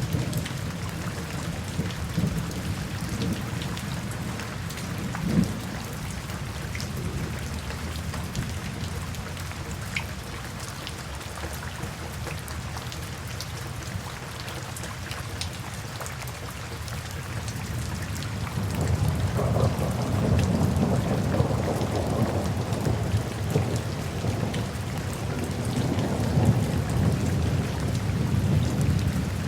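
Steady rain falling, with a long low rumble of thunder that swells in about two-thirds of the way through and rolls on to the end.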